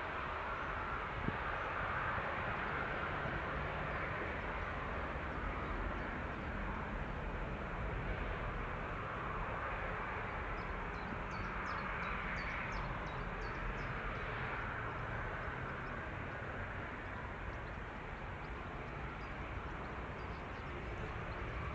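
Airbus A380's four jet engines running at low thrust as the airliner sits on the runway before take-off: a steady rumble and hiss.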